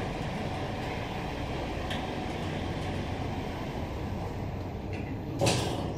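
Steady hum and hiss inside an Otis Gen2 ReGen traction lift car, with a brief louder rustle or bump about five and a half seconds in.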